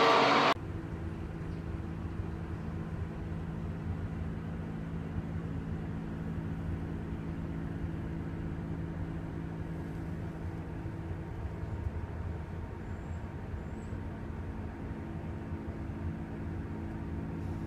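A loud sound cuts off about half a second in. After it comes the steady low hum of a car engine idling, heard from inside the car.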